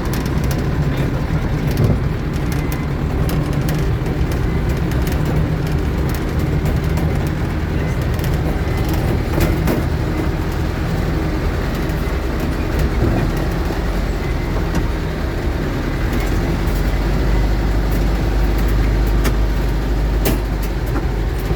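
Safari jeep engine running steadily with a low rumble, with scattered light clicks and rattles.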